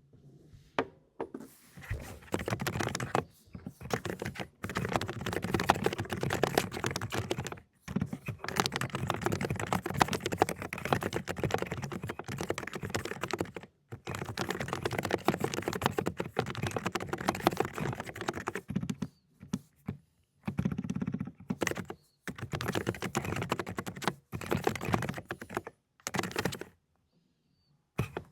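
Fast typing on a Dokgeomi mechanical keyboard with low-noise 'cotton candy' switches: quick runs of keystrokes broken by several short pauses.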